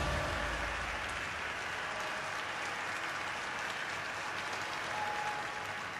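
Audience applauding as the song's last low notes die away in the first second.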